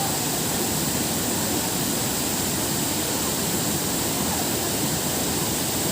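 Rushing water of a waterfall: a steady, even rush that does not change in level.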